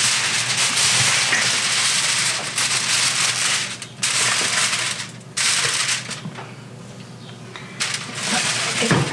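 Aluminum foil crinkling and crackling as a sheet is pressed and tucked over a loaf of bread in a baking pan. It comes in a long burst, stops briefly at about four seconds, then comes back and dies down after about six seconds.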